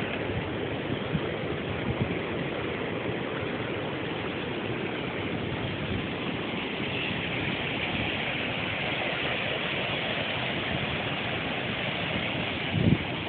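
Water rushing over a river weir: a steady rushing noise that grows brighter from about halfway through. A few low thumps of wind on the microphone come near the end.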